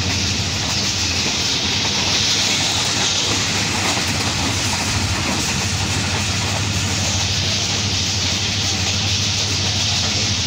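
Tezgam Express passenger train running at speed, heard from an open coach window: a steady rumble of wheels on rail under a loud rushing hiss of wind.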